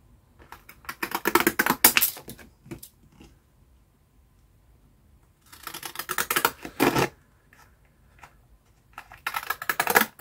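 Children's decorative-edge craft scissors cutting through a greeting card: three short runs of rapid, crisp snipping clicks, about a second in, midway, and near the end, with quiet pauses between.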